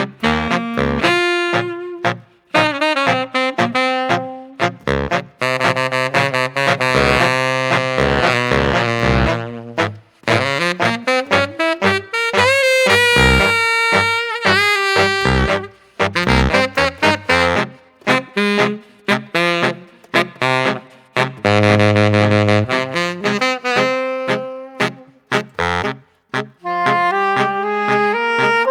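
Instrumental jazz-style music led by saxophone with brass, playing quick runs of notes.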